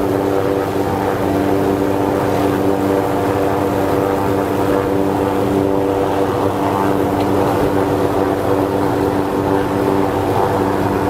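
A steady, unchanging motor-like drone at one constant pitch.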